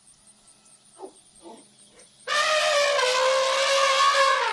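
An elephant trumpeting: one loud, high call held for about two seconds, starting about two seconds in and sagging slightly in pitch at its end.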